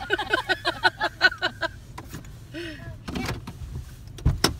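Car's power window motor running as the side window winds up, ending with a couple of sharp knocks as it shuts about four and a half seconds in, over a steady low rumble of wind buffeting the car.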